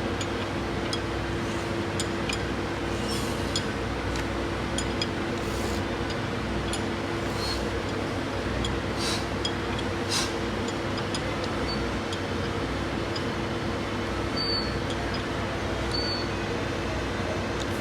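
A steady mechanical hum with scattered light metallic clinks, as of hand tools on engine parts during reassembly.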